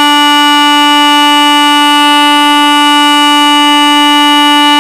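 Indian Railways electric locomotive's horn sounding one long, steady, loud blast, the signal that the train is ready to depart.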